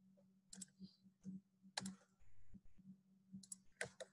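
Faint, scattered clicks of a computer keyboard and mouse, about half a dozen spread over a few seconds, over a steady low hum.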